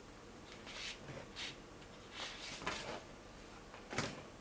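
Thick cardboard game boards being handled, sliding and scraping against each other in a few short swishes, with one sharp knock of board against board about four seconds in.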